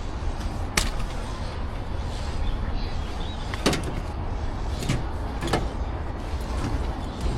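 About four sharp knocks, spaced unevenly, over a steady low rumble.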